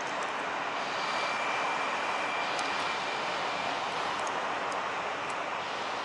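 Steady rushing roar of heavy ocean surf breaking. A faint high whine, likely from a jet ski motor, runs from about one to nearly four seconds in.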